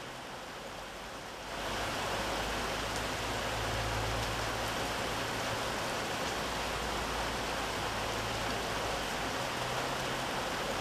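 Steady rain falling, an even hiss of drops on wet ground, growing louder about a second and a half in, with a faint low hum underneath.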